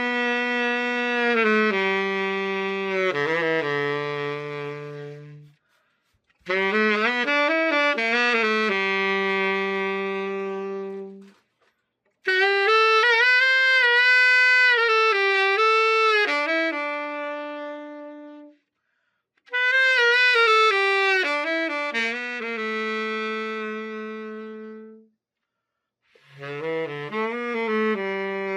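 Silver Genesis Master 6 tenor saxophone playing a slow melody in five short phrases with brief pauses between them. Most notes are held and fade at the end of each phrase, as in a play test after a full overhaul.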